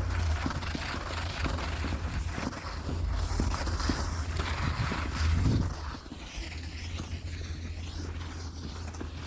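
Footsteps crunching and scraping through snow over a low rumble of wind on the microphone; the steps grow quieter about six seconds in.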